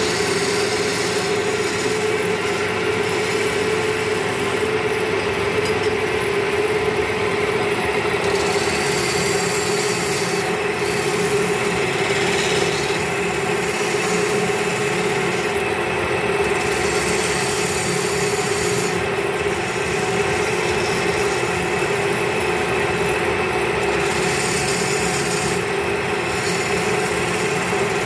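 Wood lathe running with a turning chisel cutting into the spinning wooden table leg: a scraping hiss of the cut that swells and eases every few seconds over the lathe's steady hum.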